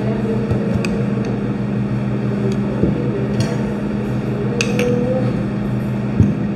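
A metal spoon clinking lightly on a small ceramic bowl and plate as sauce is spooned out, a few separate clinks and a thump near the end. All of it sits over a steady low hum.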